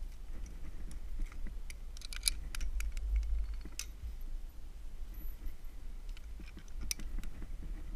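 Scattered sharp clicks and clinks of metal climbing hardware, carabiners and quickdraws, as a climber moves up a rock face. A cluster of clicks comes about two seconds in, with single ones near four and seven seconds, over a steady low rumble.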